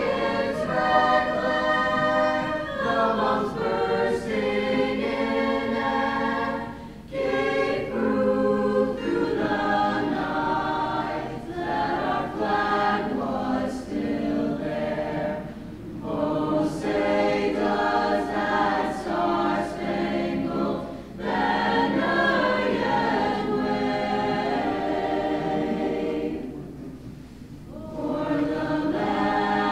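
Mixed-voice high school chamber choir singing sustained chords, phrase by phrase, with short breaks between phrases.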